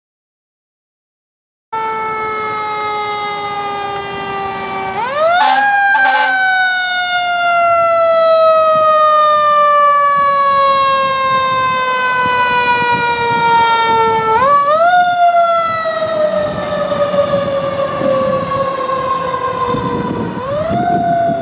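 Emergency vehicle siren that winds up quickly and then slowly falls in pitch over several seconds, three times, in the way a mechanical siren is spun up and left to coast down. Vehicle and road noise run underneath.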